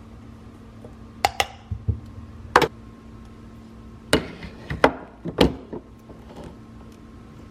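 Sharp knocks and clacks of espresso-making parts being handled, about six in two clusters, over a steady low hum.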